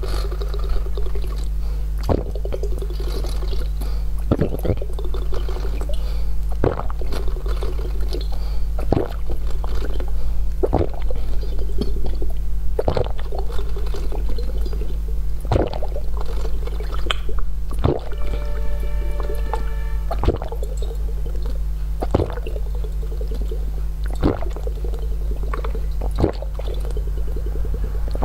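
A person drinking a homemade drink from a glass bottle in close-miked ASMR, with wet gulping sounds about every two seconds.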